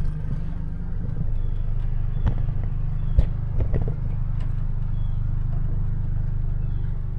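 Suzuki outboard motor running steadily under way, heard as a low rumble from inside the boat's cabin, with a few light knocks.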